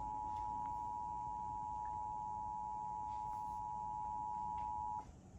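Emergency Alert System attention signal: the steady two-tone alert (853 and 960 Hz together) held as one unbroken tone, which cuts off sharply about five seconds in. It announces an EAS message, here a required monthly test.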